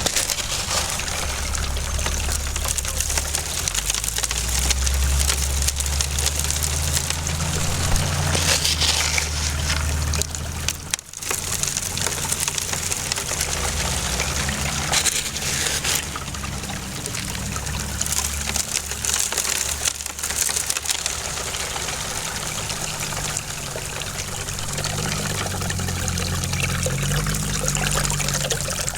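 Water pouring and trickling steadily as buckets of gold-bearing tailings are washed through prospecting gear, with a low hum underneath; it breaks off briefly about eleven seconds in.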